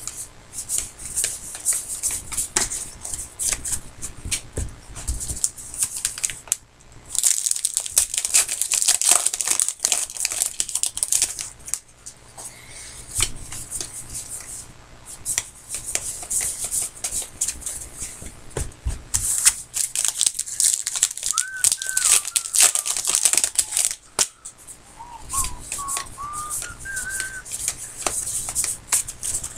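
Trading card pack wrappers being torn open and crinkled, in repeated bursts of rustling. Between about 21 and 28 seconds in, a person whistles a few short gliding notes over it.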